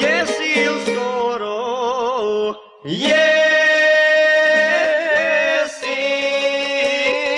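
Traditional Bosnian izvorna folk song: male voices singing long, wavering held notes over a steady low accompanying note, with a brief gap about a third of the way in.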